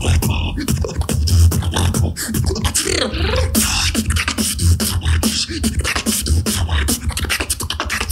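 Human beatboxing: a fast, dense stream of mouth-made kick, snare and hi-hat sounds over deep pulsing bass, with a rising sliding vocal sound about three seconds in.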